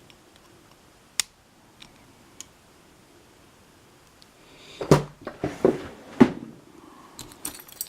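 Handling noise from a picked lock being reassembled: a few light clicks, then a run of loud knocks and clatters of its metal parts being fitted back together, followed by lighter rattling clicks near the end.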